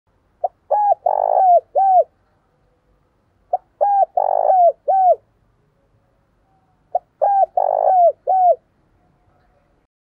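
Spotted dove cooing: three repeated phrases about three and a half seconds apart, each a quick run of short notes with a longer, rougher note in the middle.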